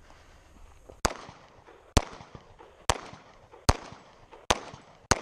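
Semi-automatic pistol fired six times at targets, the shots about a second apart, with the last pair closer together.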